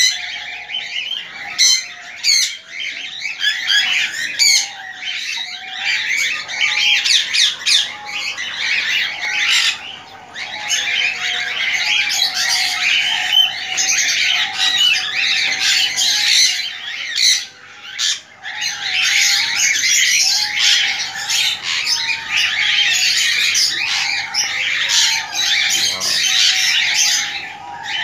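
Many caged birds chirping and squawking at once in a dense, continuous chatter, with short lulls about ten seconds in and again a little before halfway through the second half.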